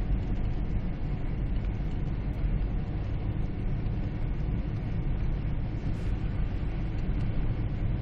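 Steady low rumble of a car driving through deep snow, its engine and tyres heard from inside the cabin, as it goes down and back up a snow-covered hill.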